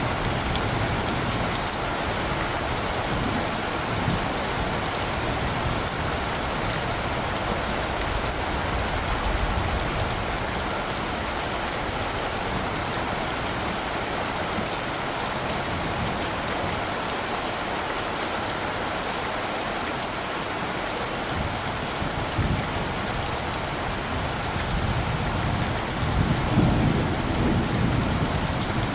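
Steady rain falling on surfaces, with a low rumble of light distant thunder swelling near the end.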